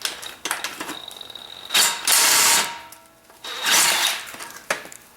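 Socket ratchet clicking as it is swung back and forth on a 17 mm nut, with two longer runs of rapid clicking about two and four seconds in.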